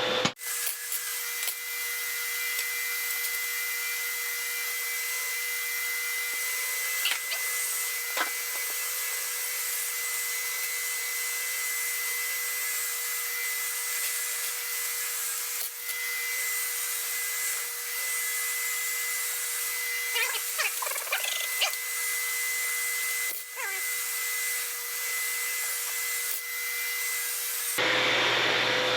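Steady hissing noise of metalworking on a steel frame, a welder or grinder working continuously with a few brief breaks, stopping abruptly near the end.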